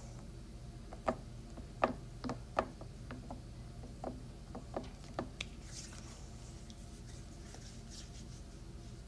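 A run of about a dozen sharp plastic clicks and taps, then faint rustling, from a red-capped plastic stick container being handled and twisted close to the phone's microphone.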